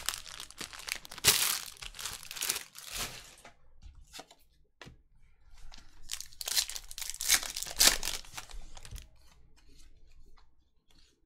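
Trading card pack wrapper being torn open and crinkled by hand, in two bouts of rustling a few seconds apart.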